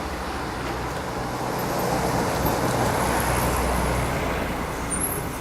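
A motor vehicle passing by. The engine hum and tyre noise swell to a peak midway and then fade.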